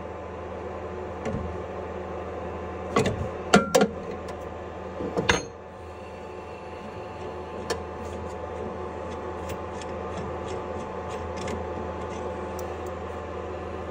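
Several sharp metallic knocks and clicks about three to five seconds in as the edge finder is handled and pulled from the spindle of a desktop CNC mill, over the mill's steady hum; a few faint ticks follow.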